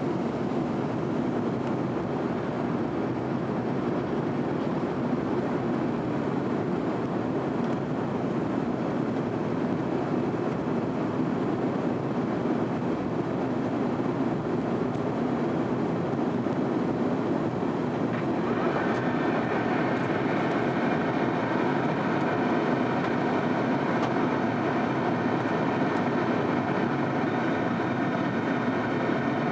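Airbus A330 engines and airflow heard from inside the passenger cabin, a steady, even roar. About two-thirds of the way through, a set of steady whining tones joins in and holds.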